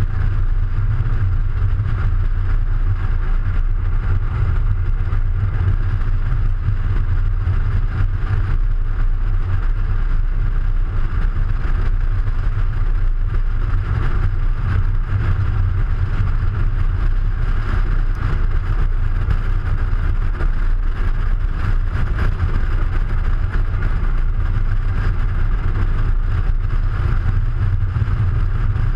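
Audi A3 driving at a steady pace, heard from a camera mounted outside low on the body beside a front wheel: an even, steady rumble of road and wind noise.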